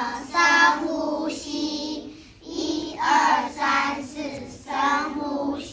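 A group of young children singing together in unison, the phrases broken by short pauses: a children's animal warm-up exercise song with rewritten lyrics.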